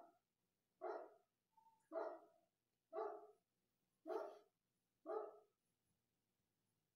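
A dog barking at an even pace, about one bark a second, six barks in a row.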